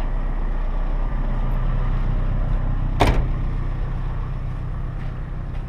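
Vehicle engine idling with a steady low hum, with one sharp knock about three seconds in.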